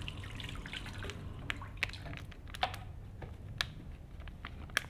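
Water from a kitchen tap splashing and dripping into a sink as oily hands are washed, with scattered sharp drips and taps about once a second.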